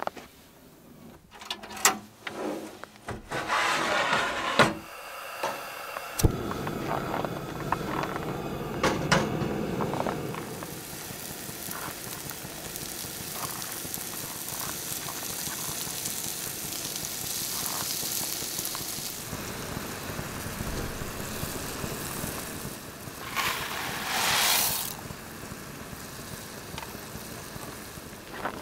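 Sausage slices and mushrooms sizzling in a frying pan on a gas camp stove, a steady hiss, after a few knocks and clatters of gear being handled near the start. A brief louder hiss comes near the end.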